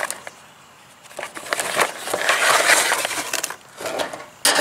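Cardboard product box being handled and opened, a rustling, crinkling scrape of packaging starting about a second in. It fades briefly, then a louder rustle starts suddenly near the end.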